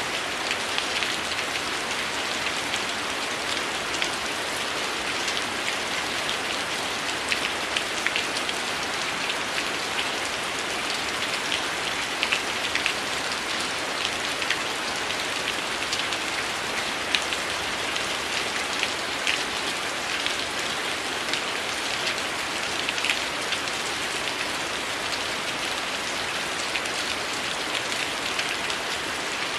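Steady heavy rain: a dense, even hiss with many short, sharp ticks scattered through it.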